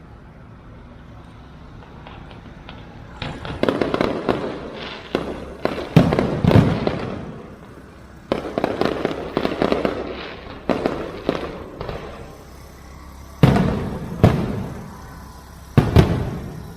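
Fireworks show going off: after a few quiet seconds, rapid bangs and crackling set in, broken by several heavy booms, one about a third of the way in and two more near the end.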